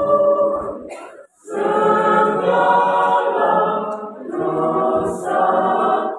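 Mixed choir of men and women singing a cappella in close harmony. A held chord fades away, there is a brief breath pause about a second in, and then the whole choir comes back in together and sings on.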